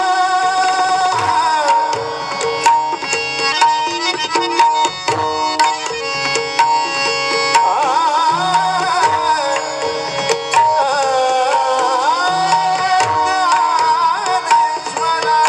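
Marathi bhajan (abhang) sung to hand-drum accompaniment over steady held instrumental tones. About two seconds in the voice drops out for a stretch of brisk drumming, and the singing returns about eight seconds in.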